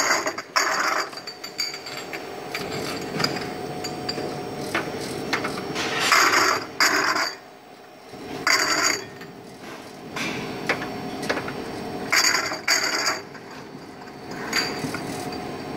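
Automatic bottle rinsing machine running: a steady mechanical clatter of its conveyor and gripper mechanism, with a faint steady hum. About five short loud hissing spells come and go at uneven intervals.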